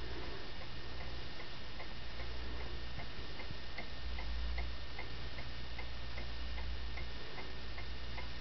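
Home-built brass clock movement ticking evenly, about three ticks a second, on its first test run. A steady low hum runs underneath.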